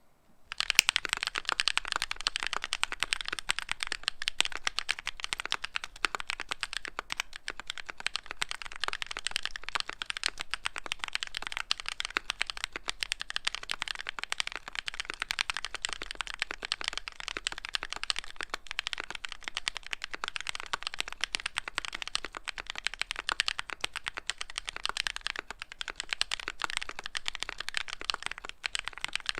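Keychron Q1 aluminium mechanical keyboard with KTT switches being typed on steadily and fast, a dense, continuous run of key clacks that starts about half a second in.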